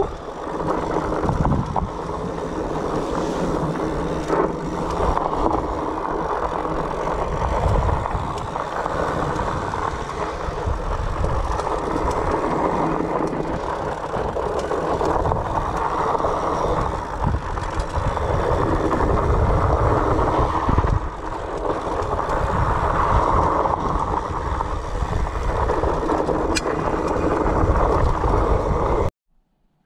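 A mountain bike riding down a dry, stony dirt singletrack: a steady, uneven rushing rumble of knobby tyres rolling over dirt and rocks, with a few sharp knocks. It cuts off suddenly just before the end.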